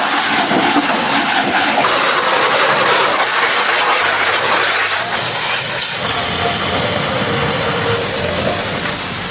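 Pressure washer spraying a steady hissing jet into a car's blower motor and vent ducts. A low hum comes in about halfway through.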